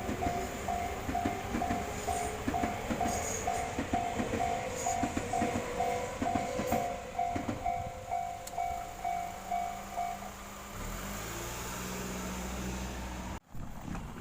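Railway level-crossing warning bell ringing in repeated single strikes, about two a second, over a passing train's wheels clattering on the rail joints. The bell stops about ten seconds in, leaving a low steady hum.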